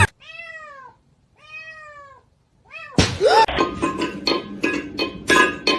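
A cat meowing: two drawn-out meows that rise and fall in pitch, then a short third one. About three seconds in, loud music with sharp percussive hits cuts in abruptly.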